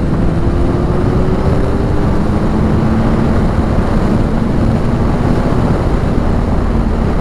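Suzuki GSX-R 750 inline-four with an Akrapovic exhaust under way at speed, mixed with heavy wind rush. Its note holds steady, drops in pitch about two seconds in, then holds steady again.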